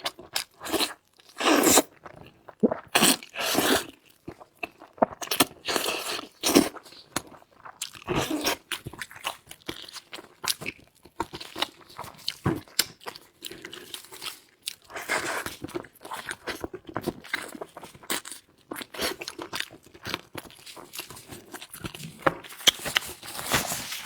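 A person biting and chewing crunchy food: an irregular run of crisp crunches with short pauses between bites.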